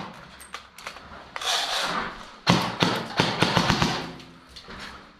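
Airsoft gunfire: a sharp crack at the start, a few scattered clicks, then a quick string of snaps about two and a half seconds in.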